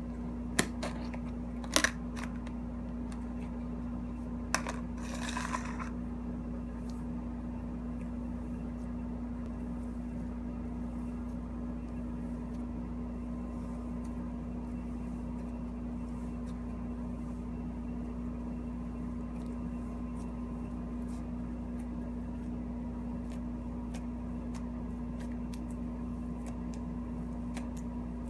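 Plastic slime tub being opened: a few sharp clicks and a short rustle in the first six seconds. Then faint scattered crackles as fibrous cloud slime is stretched and squeezed by hand, over a steady low hum.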